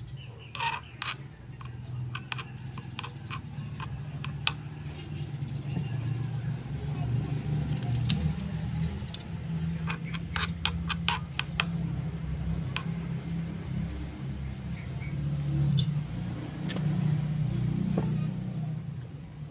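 Small metal spatula clicking and scraping against a miniature aluminium wok while stirring garlic, onion and meat, with a quick run of clicks about halfway through. A steady low rumble sits beneath.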